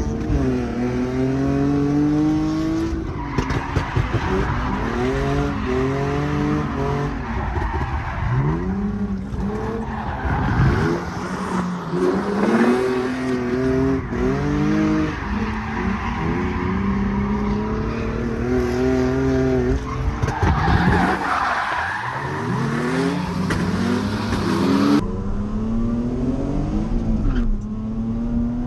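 Nissan 350Z drift car's 3.5-litre V6 being revved hard and lifted off over and over through a drift run, its pitch climbing and falling sharply every second or two, with tyres skidding on the wet track.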